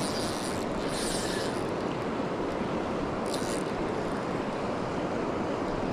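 Steady rush of river water flowing past, with short brighter hisses near the start and again just past three seconds in.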